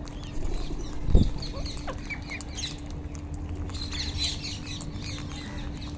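A flock of Indian ringneck parakeets (rose-ringed parakeets) giving many short, high chirping calls, busiest about four seconds in, over a steady low hum. A dull thump about a second in.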